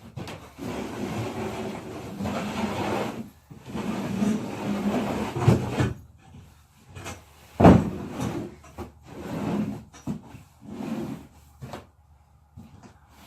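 Western saddle gear being moved and dragged across wood, with long stretches of scraping and rubbing. There is one sharp knock about eight seconds in, followed by shorter rustles.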